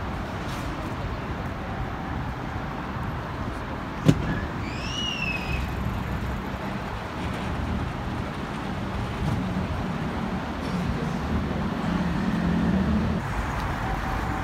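Steady city road traffic. A sharp click comes about four seconds in, followed by a short high chirp that rises and then falls. A low engine hum swells near the end.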